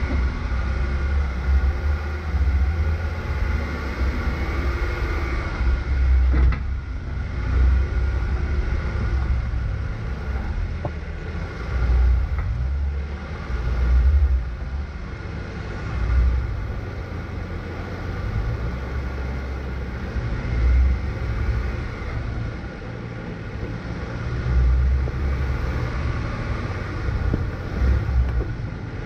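Off-road vehicle creeping along a rough, rocky dirt trail: a steady low engine and drivetrain rumble that swells unevenly every second or two as it rolls over bumps.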